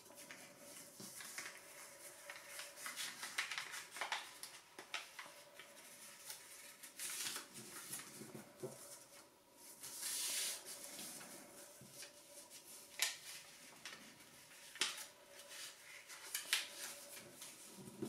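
Origami paper rustling and crinkling as it is folded into a module, with sharp crackles as creases are pressed flat and a longer sliding rustle about ten seconds in.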